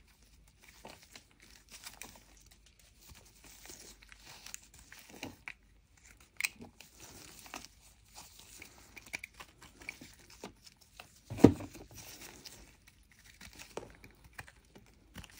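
Snap-off utility knife blade scraping the surface of a lump of Mokko clay: soft, uneven scratching and crumbling of clay crumbs, with one louder knock about eleven seconds in.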